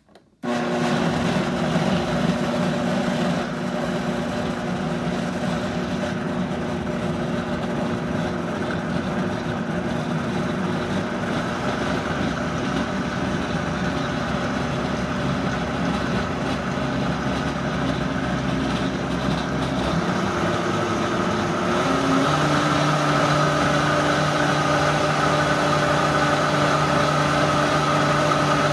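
Vitamix blender motor switching on and running steadily, blending a thick smoothie of kale, fruit, peanut butter and almond milk. About 22 seconds in its pitch steps up and it gets a little louder.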